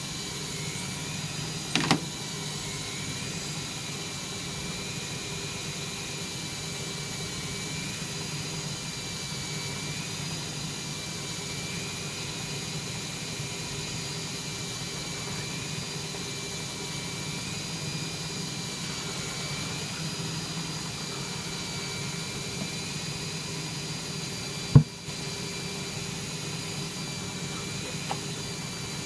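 Servis Sapphire 6055 washing machine in its final high-speed spin at 1300 rpm: a steady hum with a high motor whine that wavers slightly in pitch. A small sharp knock about two seconds in and a louder one near the end.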